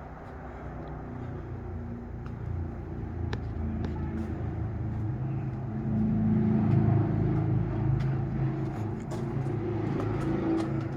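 An engine rumbling with a steady low hum, growing louder over the first half and staying loud after.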